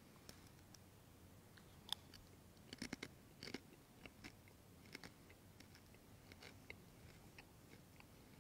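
Near silence with faint, scattered clicks and crunching: a priest chewing the communion host close to his microphone. A sharp click comes about two seconds in, and a short cluster of crunches follows around three seconds in.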